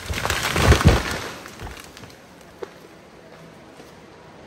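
A felled conifer crashing down through the surrounding branches and hitting the ground, with two heavy thuds just under a second in, then the crash dies away quickly.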